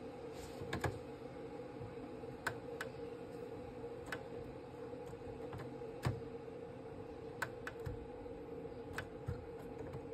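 Light clicks and taps, about a dozen at irregular intervals, from hands working inside an open Epson L3150 inkjet printer at the print head, over a steady low hum.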